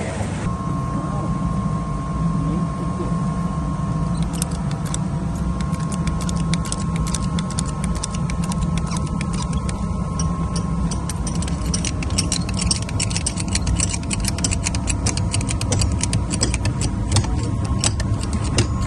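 A heavy engine running steadily with a low rumble and a faint steady whine above it. Sharp clicks and ticks come through it, scattered at first and much more frequent in the second half.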